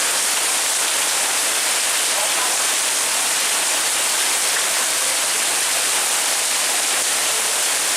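Heavy rain pouring down in a tropical storm, a dense steady hiss with no separate drops or strikes standing out.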